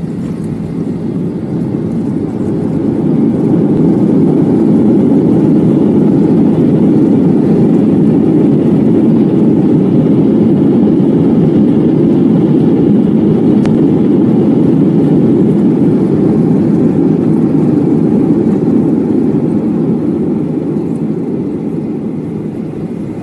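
Airliner turbofan engines and the runway roll, heard from inside the cabin as a loud, steady roar. It swells over the first few seconds, holds, and eases slightly near the end.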